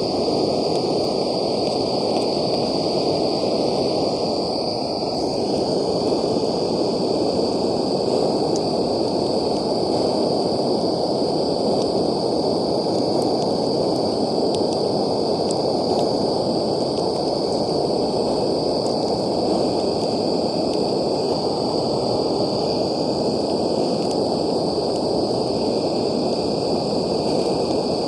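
Steady hissing roar of a portable gas camping stove's burner under a pot of boiling instant noodles, unbroken and even throughout, with a constant thin high tone above it.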